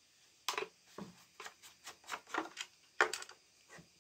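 Plastic oil-tank filler cap of a Makita UC4041A electric chainsaw being unscrewed by hand: a run of short, irregular plastic clicks and scrapes as the cap turns and comes off.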